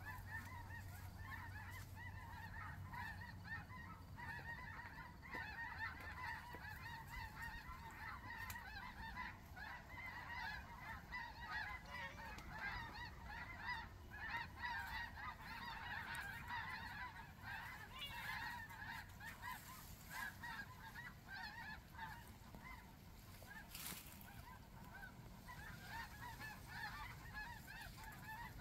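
Large flock of snow geese flying over, many birds calling at once in a continuous chorus of overlapping high honks.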